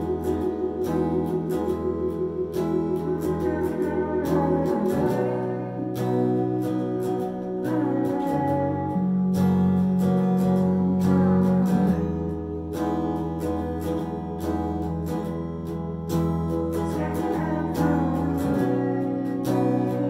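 Live music from an electric guitar and a keyboard played together: picked guitar notes over held low keyboard chords that change every few seconds.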